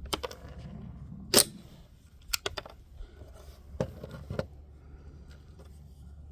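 Sharp metallic clicks of a Savage A22 semi-automatic .22 LR rifle's action being worked by hand to clear a jam, a case that the shooter thinks was not ejected or a round already in the chamber. About eight clicks, the loudest a little over a second in and a quick run of three about two and a half seconds in, stopping a little past the middle.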